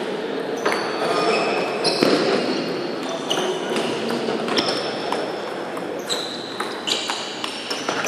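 Table tennis ball struck back and forth in a rally: a string of sharp clicking pocks off the bats and table, each with a brief high ring, echoing in a large sports hall over a low steady background of hall noise.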